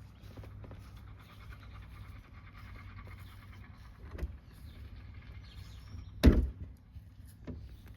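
A low steady hum with a couple of small knocks and one loud sharp thump about six seconds in.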